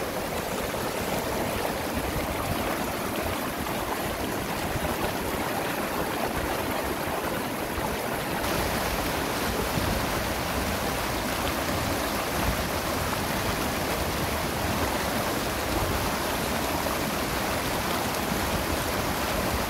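Steady rushing of a small, fast river running over rocks and shallow rapids.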